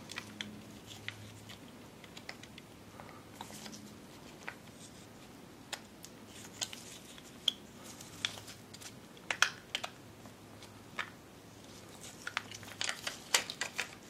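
Scattered small clicks and taps of the plastic parts of a Subaru Forester wiper switch being fiddled back together by hand, lined up and pressed into place, with a quick cluster of clicks near the end. A faint steady hum underneath.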